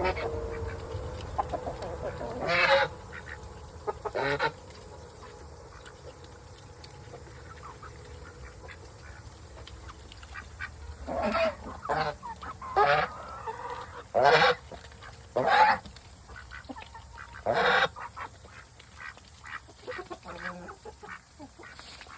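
Ducks calling with loud, honking quacks: about eight separate calls, two early on and the rest bunched in the second half.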